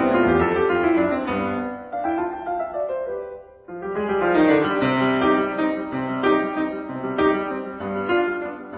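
Background piano music playing a slow melody; it fades briefly a little over a third of the way in, then the piano comes back in.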